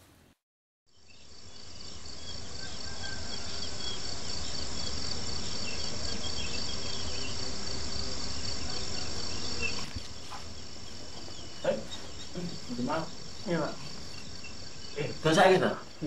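A steady chorus of chirping insects, fading in after about a second of silence, with a low rumble beneath. Near the end a few short louder sounds cut in over it.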